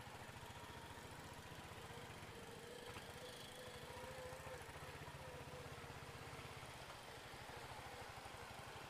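Royal Enfield Hunter 350's single-cylinder engine running steadily, heard faintly as a quick, even low pulse.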